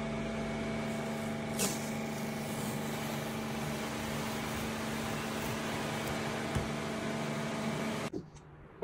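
A steady mechanical hum with several held tones and a brief click a little over a second in, cutting off suddenly near the end.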